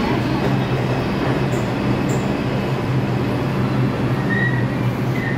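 R142 subway train standing at a station platform: a steady low hum and rumble from the train. Two brief high beeps come near the end.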